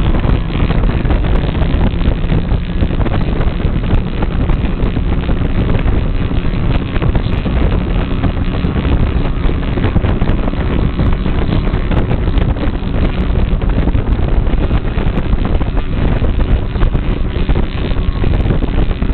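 Heavy wind buffeting the microphone over the steady noise of a boat under way on choppy water, with no single event standing out.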